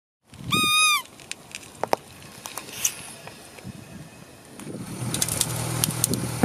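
A rubber squeaky toy frog squashed under a car tyre, giving one loud honking squeak about half a second in. Light crackling and ticks of grit under the rolling tyre follow, and near the end a low steady hum from the car comes in.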